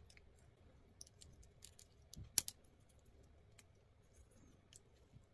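Small plastic parts of a Mobility Joint Gundam figure being handled, giving faint scattered clicks and taps, with one sharper click about two and a half seconds in.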